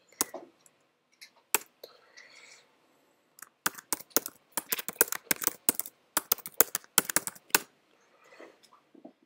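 Laptop keyboard typing: a few separate keystrokes, then a fast run of key clicks lasting about four seconds as a passphrase is typed in.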